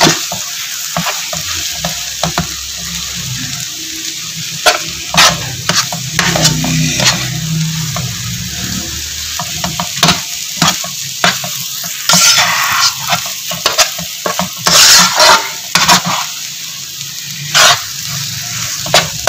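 Metal spatula scraping and knocking irregularly against a wide black pan as chopped egg and vegetables are stir-fried, over a steady sizzle.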